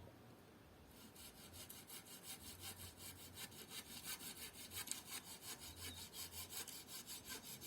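Hand saw cutting through wood in quick, even back-and-forth strokes, faint and a little distant, starting about a second in.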